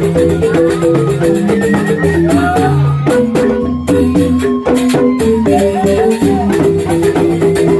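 Balinese rindik music: bamboo xylophones playing fast, repeating interlocking notes, with a rattling percussion beat and a gliding melody line above.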